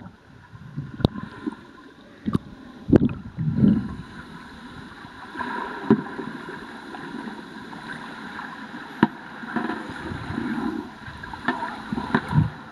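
Muffled underwater sound of a kayak being rolled in a pool: water swirling and sloshing as the paddle sweeps through, with several sharp clicks and knocks along the way.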